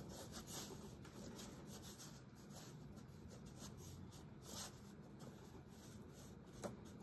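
Faint rubbing and brushing of fingers pressing and smoothing soft clay, working a clay coil down onto a clay base, with a few short scuffs.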